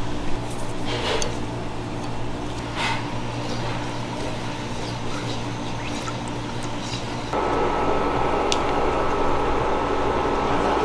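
Pastry cream cooking in a saucepan on an induction cooktop, stirred with a silicone spatula: soft liquid stirring and a few light taps against the pan over a steady low hum. About seven seconds in a louder, even hiss comes in.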